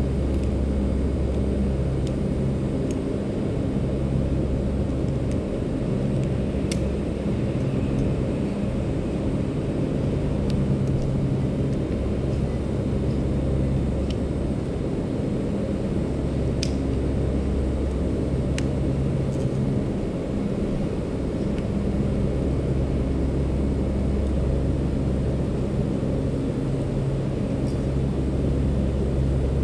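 A steady low rumble, with a few sharp metallic clicks of rope-access hardware being handled: carabiners and a rope descender.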